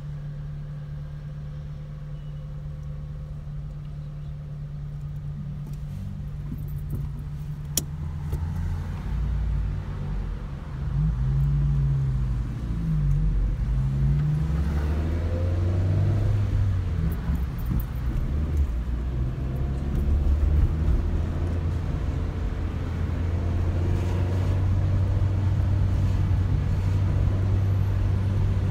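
Car engine heard from inside the cabin, idling steadily while stopped. About eleven seconds in it grows louder as the car pulls away, the engine note rising and falling through the gear changes. A single sharp click sounds about eight seconds in.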